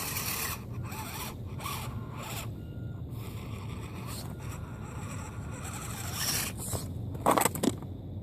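A 1/18-scale ECX Temper RC crawler's small electric motor and drivetrain whirring in short throttle bursts as its tires scrabble for grip on icy rock, struggling to climb. Near the end come a few louder crunches.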